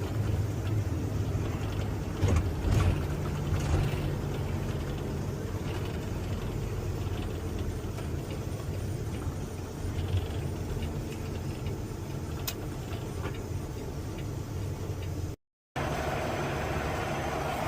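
Semi truck driving, a steady low engine drone with road noise, with a few knocks and rattles about two to four seconds in. The sound cuts out for a moment near the end.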